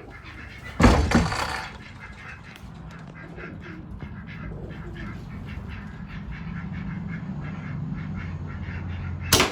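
Pigeons cooing in an enclosed roost, with a loud rustle about a second in. A short sharp airgun shot comes near the end.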